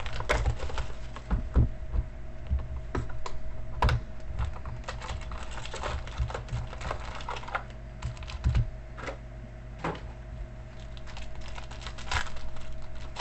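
Irregular small clicks and taps of sports trading cards being handled, shuffled and set down on a table, with a few louder knocks, over a steady low electrical hum.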